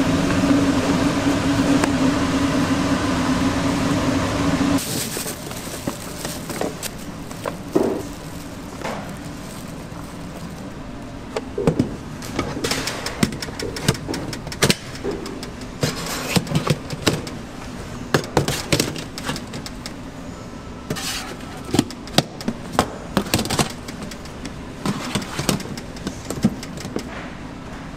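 Restaurant kitchen sounds: a loud steady machine hum that cuts off suddenly about five seconds in, then scattered clinks and knocks of dishes and utensils.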